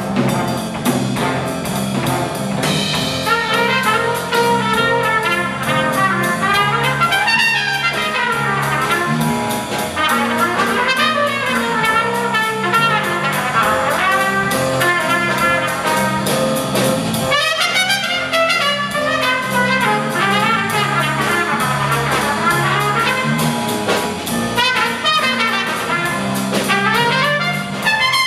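Big band playing a fast jazz number, with a trumpet soloist running quick lines up and down over the saxophone, trombone and rhythm-section backing.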